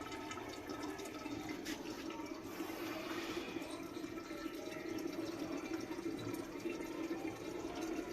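Soybean keema and potato curry simmering in a covered pan, bubbling steadily with small pops.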